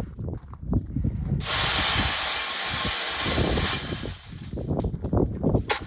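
Grain pouring out of a scoop into a feed trough: a steady hiss lasting a little over two seconds, starting about a second and a half in, amid rustling and handling knocks.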